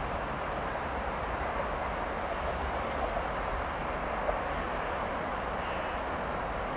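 Container freight train rolling slowly away over yard tracks: a steady, even rumble and rolling noise with no distinct clacks.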